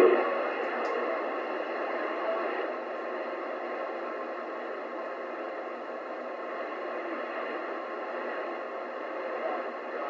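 Royce 619 CB radio receiving channel 28 with no station on it: a steady hiss of band static from its speaker, heard just after a distant skip voice cuts off at the very start.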